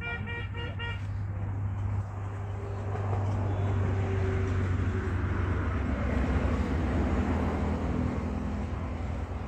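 Motor vehicle running on a nearby road, a steady engine rumble under tyre and road noise that grows louder from about two seconds in. In the first second there is a quick string of pulsing beeps, like a horn or alarm.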